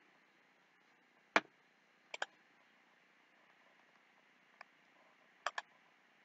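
Computer mouse clicks: a single sharp click, then a quick double-click, a faint click and another double-click, over low room hiss.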